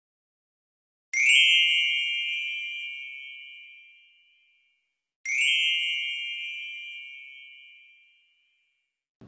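Two identical bell-like dings, about four seconds apart, each ringing out and fading over about three seconds, with dead silence before and between them: an added sound-effect chime.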